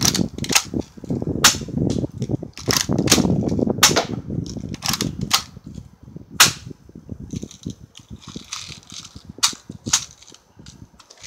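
Daisy Powerline 340 spring-air BB pistol being cocked and fired repeatedly: a dozen or so sharp snaps at uneven intervals. A low rumbling noise runs under the snaps in the first half.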